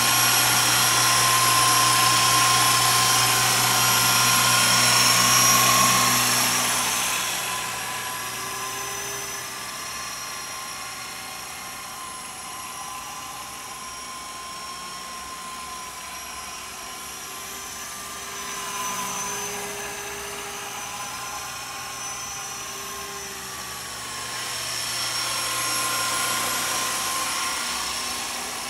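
Walkera Lama 400 coaxial electric RC helicopter flying, its motors and rotors making a steady high-pitched whine. It is loud for the first several seconds, fades as the helicopter moves away, then grows louder again near the end.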